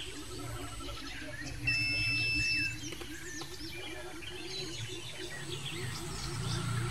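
A single steady, high electronic beep lasting about a second, beginning about two seconds in, from test gear on a phone-repair bench, with birds chirping faintly throughout.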